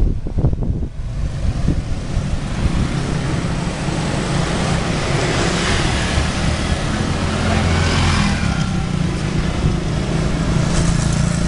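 Street traffic of motor scooters and motorcycles: a steady engine rumble with road noise, one engine swelling louder past the middle.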